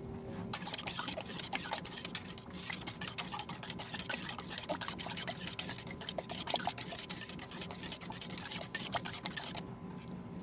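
Metal spoon scraping and stirring wet sand-and-silt sediment in a stainless steel beaker: a dense run of wet clicks, scrapes and squelches as the top layer of a grab sample is homogenized. It stops shortly before the end.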